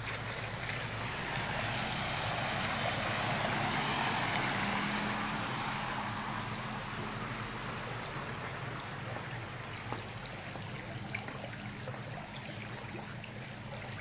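Muddy floodwater running across a road, a steady rushing that swells for a few seconds and then settles.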